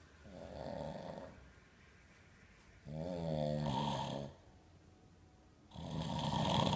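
A man snoring in his sleep, three snores about two and a half seconds apart. The middle one is a buzzing, pitched snore and the last is the loudest.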